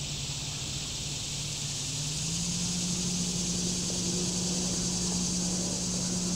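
A distant engine drones steadily, its pitch rising a little about two seconds in and then holding.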